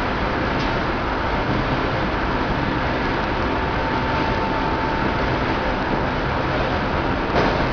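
Briquette ball production line machinery running: a steady, dense mechanical din with a faint hum through it, and one short sharp knock near the end.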